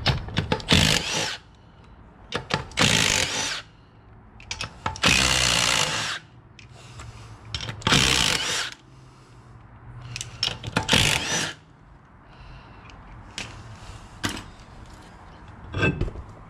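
Cordless impact wrench running in about five bursts of roughly a second each, undoing the wheel nuts on a steel wheel, with small metallic clicks between the bursts.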